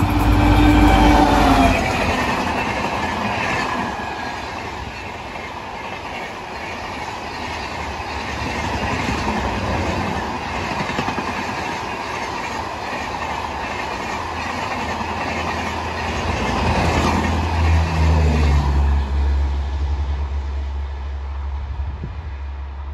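WDP4D diesel locomotive passing at speed, loudest in the first two seconds, its engine note dropping in pitch as it goes by. After it, a long rake of LHB passenger coaches rolls past with steady wheel-and-rail noise and clatter. A low steady hum comes in near the end as the last coach goes by and the train pulls away.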